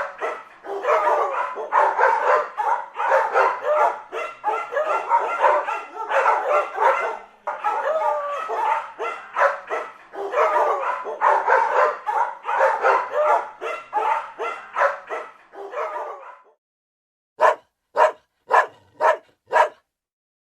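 A dog barking excitedly in a fast, uneven run of barks and yips with whining pitch slides between them for about sixteen seconds. After a short pause it gives five sharp barks in quick succession, about two a second.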